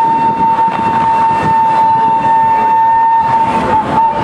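Train whistle blowing one long, steady blast at a single pitch, which cuts off shortly before the end and is followed by a brief short toot.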